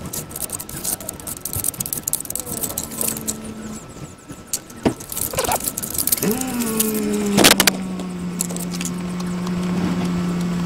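A plastic spreader scrapes and clicks against a mixing board as two-part body filler is worked together, then is drawn across the van's lower body panel. About six seconds in a steady hum starts, dipping slightly in pitch before holding.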